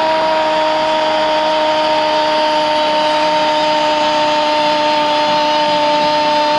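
A football commentator's long, held goal cry of "gooool", one unbroken steady note sustained for several seconds over a haze of stadium crowd noise, celebrating a goal just scored.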